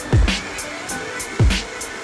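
Electronic background music with a steady beat: deep bass hits that drop in pitch, with sharp high hits ticking between them.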